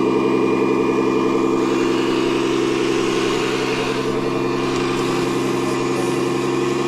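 Steady engine-like drone from a radio-controlled model machine running at a constant pace, one even, unchanging pitch with a slight rattle.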